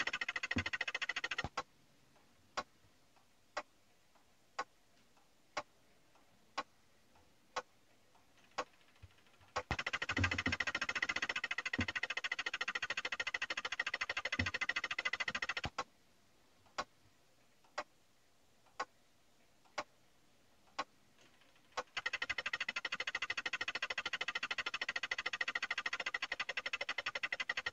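A steady buzz from the New Haven Westinghouse electric clock of a 1931 Westinghouse Columaire 801 alternates with stretches of single sharp ticks, one a second, as the second hand steps. The buzz stops about a second and a half in, giving way to about eight ticks. It returns for about six seconds, stops again for six more ticks, and comes back near the end.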